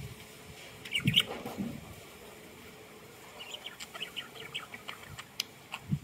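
Pet budgerigars chirping: a louder call about a second in, then a run of short, quick chirps at about four or five a second in the second half.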